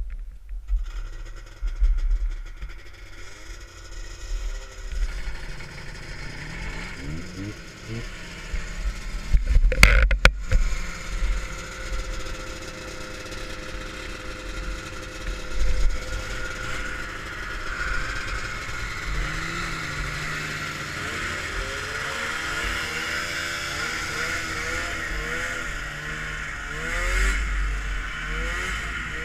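Vintage Ski-Doo snowmobile two-stroke engines being started and revved, their pitch rising and falling, then running steadily. There are a couple of loud knocks about ten seconds in.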